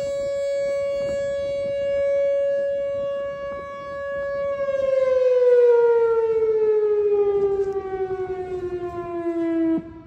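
Whelen WPS 4004 electronic outdoor warning siren sounding its steady alert tone at about 560 Hz. About halfway through, the tone glides steadily down in pitch, then cuts off abruptly just before the end, ending a test alert.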